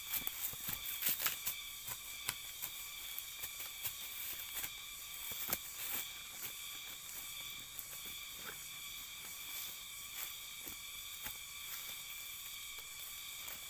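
Dry leaf-and-twig mulch rustling and crackling in short irregular clicks as hands work the soil, planting pineapple suckers. Underneath runs a steady high-pitched drone.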